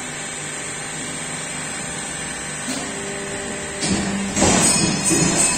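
Press brake working: a steady machine hiss, which grows louder with a low steady hum about four seconds in as the steel sheet is bent.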